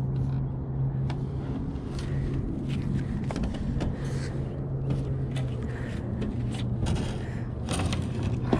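A heavy piece of scrap metal stuck to a fishing magnet is being hauled up, with scattered knocks and scrapes. Under it runs a steady low hum that fades out about six and a half seconds in.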